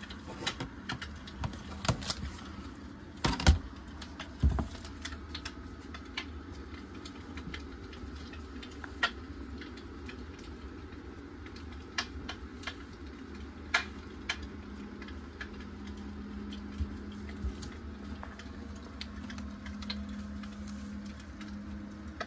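Scattered light clicks and taps of gloved hands working a cloth against a glass tabletop, with a couple of louder knocks about three to four seconds in.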